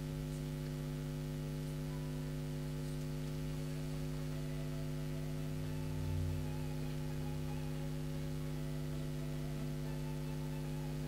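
Steady electrical mains hum with its evenly spaced overtones, with a brief low rumble about six seconds in.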